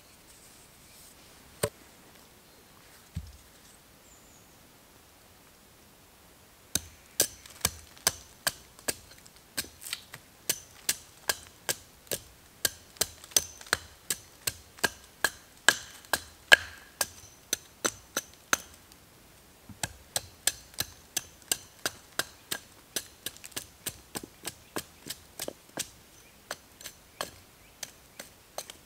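Two single wooden knocks, then a long run of quick, light chops from a hatchet hewing the side of an upright log, about two strokes a second, with a short pause about two-thirds of the way through.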